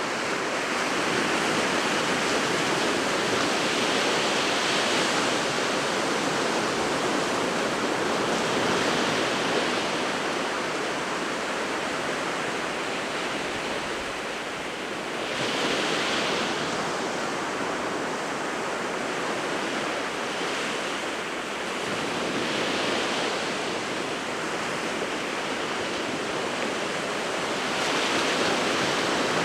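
Sea waves breaking on the shore: a continuous rush of surf that swells louder every few seconds as each wave comes in, then eases.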